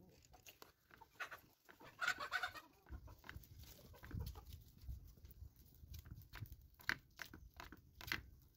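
Chickens clucking, loudest about two seconds in, over scattered clicks and scrapes of a metal spoon working thick halva dough in a metal pan.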